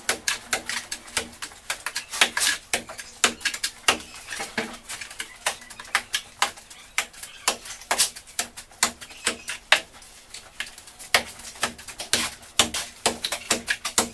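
Mason's steel trowel working mortar and throwing it onto a brick wall: a quick, irregular string of sharp clicks, knocks and scrapes, several a second.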